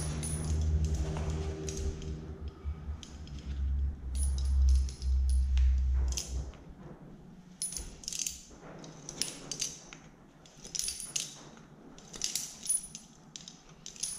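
A thin metal tool scraping and clicking inside the plastic side cover of a Makita MEA3201M chainsaw as bamboo sawdust is picked out of it, in quick, uneven strokes from about halfway on. Before that, a low rumble of the cover being handled.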